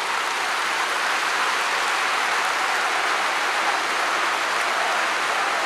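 A large stadium crowd applauding, a dense, steady wash of clapping.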